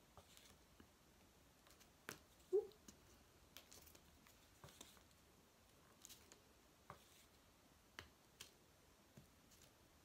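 Faint taps and light clicks of a cork being dipped into a plastic paint palette and dabbed onto card to print small paint circles, spaced irregularly about a second apart. One short squeak about two and a half seconds in is the loudest sound.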